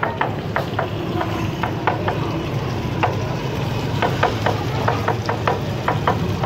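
Metal spatula clacking and scraping on a flat metal griddle as egg patties for anda burgers are pressed and turned: an irregular run of sharp clicks, about three a second, over frying sizzle and a steady low hum.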